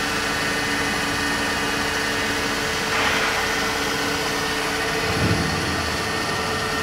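An Atrump B6FC CNC bed milling machine runs a program, with its spindle turning and table feeding. It gives a steady mechanical hum with whining tones. One tone drops out about three seconds in with a brief hiss, and a short low rumble comes near the end.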